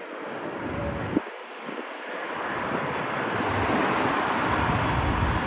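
Twin-engine Boeing 767 jet airliner landing and rolling out, its engine noise a broad rush that grows steadily louder, with a deepening rumble in the second half. Wind buffets the microphone.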